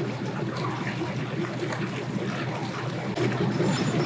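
Boat motor running with a steady low rumble, a little louder about three seconds in.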